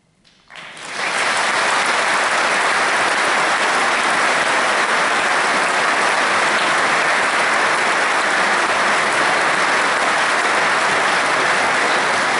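Concert-hall audience bursting into applause about half a second in, out of near silence, and clapping steadily and loudly from then on.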